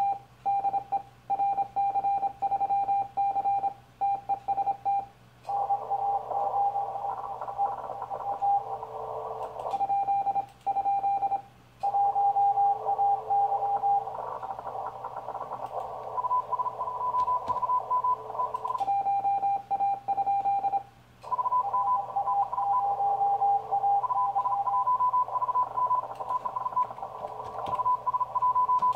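Morse code on a 40 m ham transceiver: the operator's own CQ call keyed out as a steady sidetone beep. It alternates with spells of receiver hiss in which fainter Morse signals from other stations come through. The keyed tone runs for about five seconds at the start, comes back in short bursts twice in the middle, and returns again near the end.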